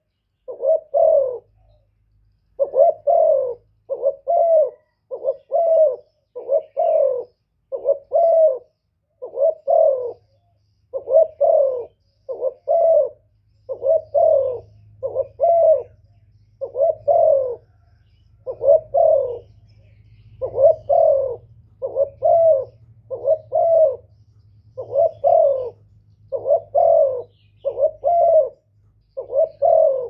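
Spotted dove calling over and over: short phrases of two or three coos, repeating about every one and a half to two seconds.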